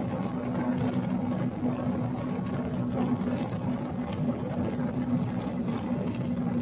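Honda Tornado 300 motorcycle's single-cylinder engine running at a steady speed, its pitch holding even without revving up or down.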